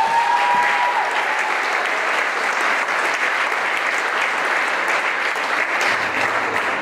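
Audience clapping steadily after a song, the dense patter holding even throughout. A held note from the end of the music fades out about a second in.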